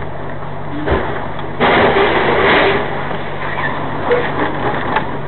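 Truck cab interior with the engine droning steadily; about a second in comes a knock, then a loud crunching burst lasting about a second as the truck collides with the lorry alongside, followed by a few smaller knocks.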